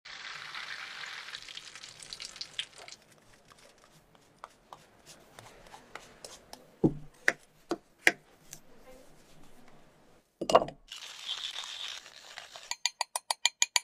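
Oil sizzling in a frying pan at the start, then scattered scraping and tapping from cheese being grated on a box grater, with two loud thumps. Near the end comes a quick run of about eight even clicks from a wooden pepper mill being turned.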